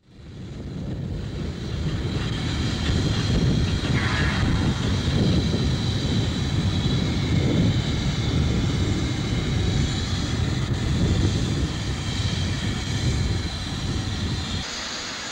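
Steam locomotive rumbling steadily close by, with a brief hiss about four seconds in; the low rumble drops away near the end.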